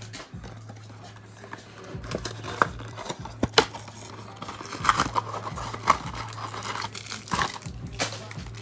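Cardboard hanger box of Donruss trading cards being torn open by hand: irregular tearing, rustling and crinkling, with a few sharp crackles.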